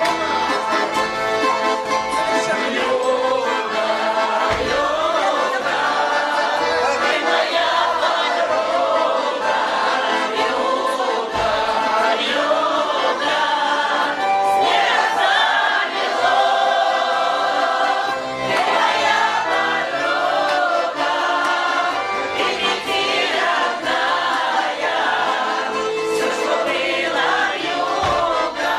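Music: a choir singing, voices gliding through long held lines.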